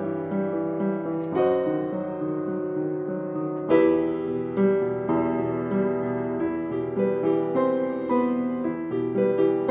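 Solo upright piano playing a slow piece of held chords over repeating notes, with a loud chord struck about four seconds in.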